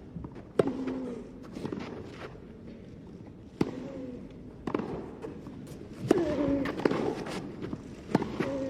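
Tennis rally: the ball struck by rackets in sharp pops about one to three seconds apart, about five shots, with short player grunts after several of them over a low crowd murmur.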